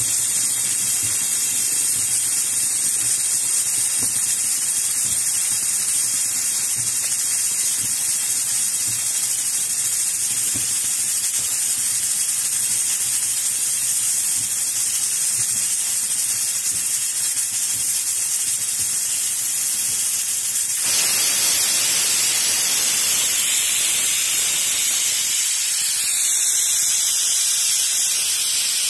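Aluminium stovetop pressure cooker hissing steadily on the flame. About 21 seconds in, the weighted whistle lifts and steam jets out in a sudden louder, harsher hiss, the sign that the cooker has reached full pressure.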